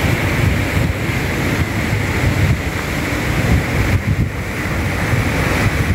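Sea surf washing on the shore with wind buffeting the microphone: a steady rush of water noise with a gusty low rumble.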